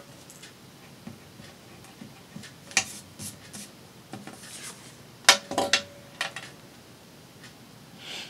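Scattered clicks and knocks of hard craft tools being handled and set down while paper is cut, the loudest a sharp clack about five seconds in that rings briefly.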